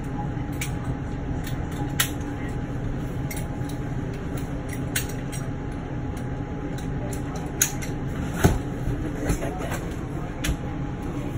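A steady low mechanical hum in a small cabin, with a few sharp clicks and knocks as seat belt buckles and dinette seat parts are handled.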